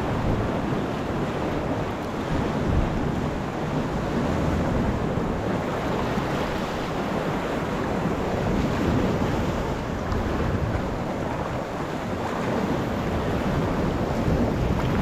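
Steady wind buffeting the microphone, mixed with sea water washing around a sea kayak.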